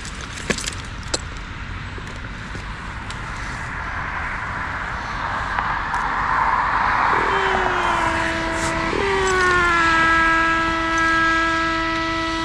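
A rising rush of passing-traffic noise, then a steady pitched tone with many overtones that sets in about seven seconds in. Near nine seconds the tone shifts and slides slightly down in pitch, then holds.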